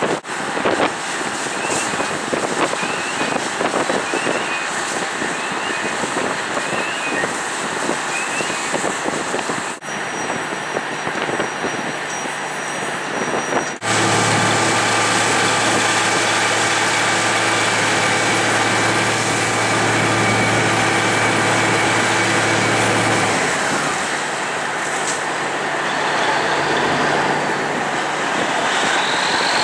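Rushing noise of a live firefighting training burn, with hose streams and fire, broken by abrupt edits. In the middle stretch a fire truck's engine runs steadily at one constant pitch over the rush.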